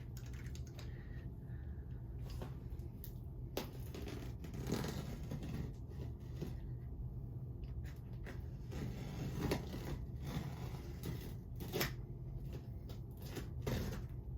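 Cardboard shipping box being handled and opened by hand: scattered rustling and scraping with a few sharp knocks, over a steady low hum.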